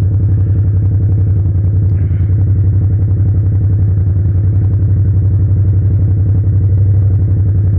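Yamaha MT-07's 689 cc parallel-twin engine running through a straight-pipe exhaust with no silencer, held at steady revs with an even, pulsing note.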